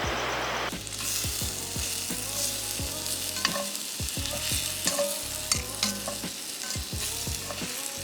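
Food sizzling and crackling as it fries, over background music with a bass line and kick drum.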